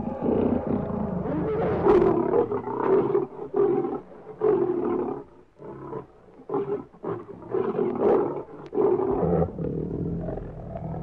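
Lion roaring: a string of deep calls, the later ones shorter and closer together.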